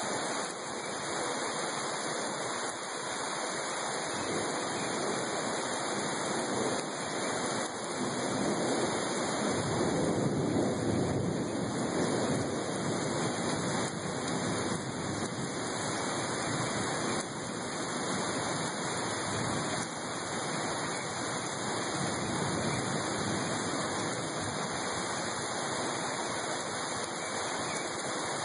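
Heavy rain pouring steadily, a dense even hiss that swells louder for a few seconds about ten seconds in.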